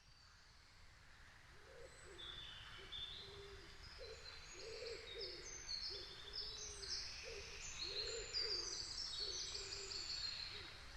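Birds calling as the sound fades in. A low hooting call repeats about once a second under many quick high chirps.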